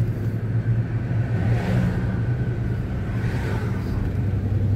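A motor vehicle engine running steadily, a low even drone with no revving.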